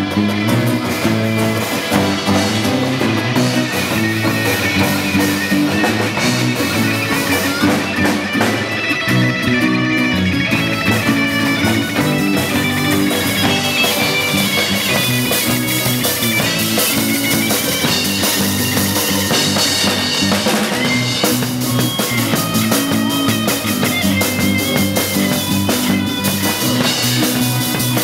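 A band playing a rock song: a strummed acoustic-electric guitar over a drum kit keeping a steady beat, with deeper bass filling in from about nine seconds in.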